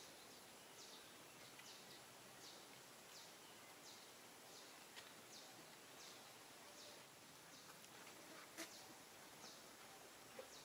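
Near silence: faint outdoor ambience with a short, high chirp repeating about every three-quarters of a second, and a couple of faint clicks.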